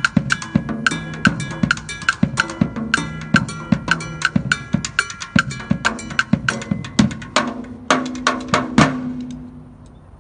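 Acoustic drum kit played in a steady groove of drum and cymbal strikes, closing with a few heavy accented hits about eight to nine seconds in. The last strokes ring on and fade out near the end.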